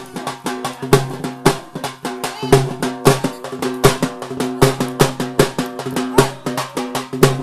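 Drums played fast and loud for a dance, with heavy strokes about twice a second and quicker hits between them, over a steady sustained tone.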